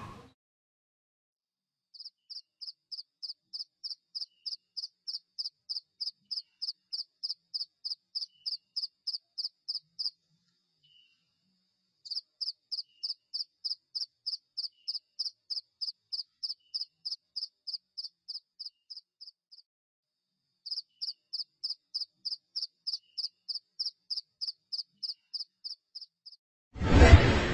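A night-time animal call, a rapid high-pitched chirping at about four pulses a second, repeated in three long runs with short pauses between. Near the end comes a sudden loud burst.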